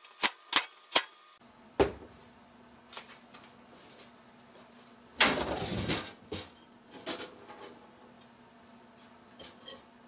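Clicks and knocks from handling a cordless drill and the sheet-metal case of an electric fireplace insert: three quick clicks in the first second and another near two seconds, then a louder rustle lasting under a second about five seconds in, and a few light taps.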